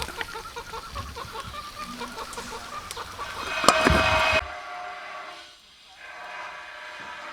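Chickens clucking in a quick run of short calls. About three and a half seconds in, a loud rushing noise breaks in and stops abruptly, leaving a quieter steady tone.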